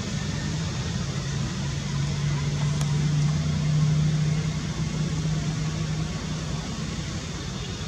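A steady low engine hum over a wash of outdoor background noise, growing louder about halfway through and easing off near the end.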